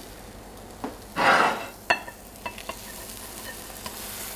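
Frying pan with a freshly cooked omelette, faintly sizzling as it is moved off the gas range and tipped to slide the omelette onto a plate. About a second in comes a short loud scraping rush, followed by a sharp click and a few light knocks of the pan.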